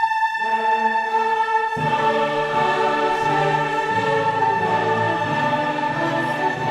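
Background music: orchestral piece with a choir singing long held notes, the lower parts coming in about two seconds in.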